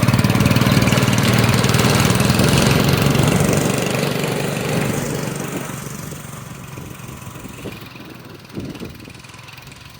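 1961 Arctic Cat Boss Cat snowmobile's two-stroke engine running under throttle, loud at first and then fading steadily as the sled rides away.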